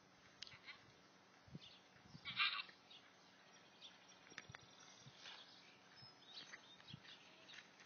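Quiet outdoor stillness with one short, high animal call about two and a half seconds in, and a few faint ticks.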